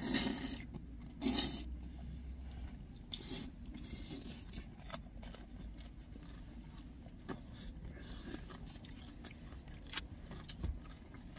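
Eating sounds from jjajangmyeon (black-bean noodles) and sweet-and-sour pork: two noodle slurps about a second apart at the start, then soft chewing with occasional clicks and scrapes of chopsticks on plastic takeout bowls.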